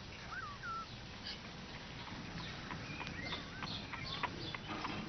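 A cat working at the latches of a puzzle box: a run of sharp clicks, taps and rattles that starts about two seconds in and keeps going. A few short bird chirps are heard near the start.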